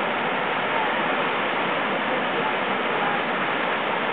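Tahquamenon Upper Falls pouring steadily: an even, unbroken rush of falling water.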